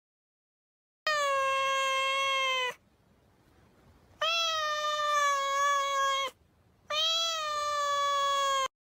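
A cat meowing: three long, drawn-out meows of nearly steady pitch, each about two seconds long and cut off sharply.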